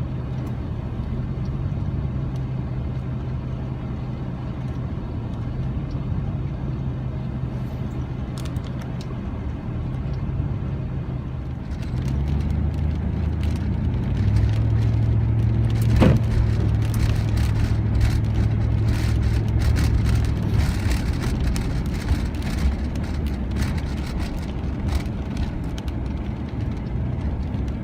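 Car cabin noise in a severe thunderstorm's strong winds: a steady low engine and road hum while gusts shake the vehicle. About twelve seconds in it grows louder, with many sharp taps on the car's body and one louder click.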